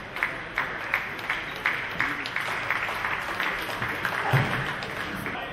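Spectators applauding in a hall, starting with separate claps about three a second and filling into steady applause that dies away near the end, with a brief low thump about four seconds in.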